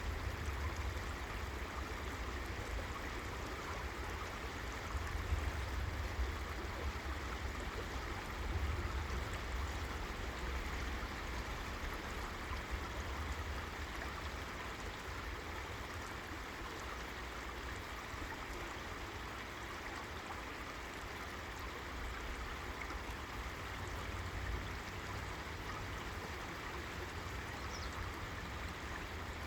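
River water flowing in a steady rushing stream, with a low rumble underneath.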